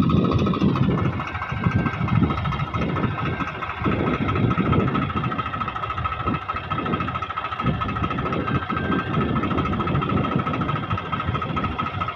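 Swaraj 735 FE tractor's three-cylinder diesel engine working hard, its loud chugging surging up and down, as the rear wheel spins and digs into loose sand under an overloaded sand trolley. A steady high whine runs over the engine.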